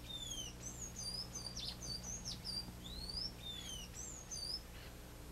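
Birds chirping and singing: a busy run of quick whistled notes that slide up and down, dying away shortly before the end.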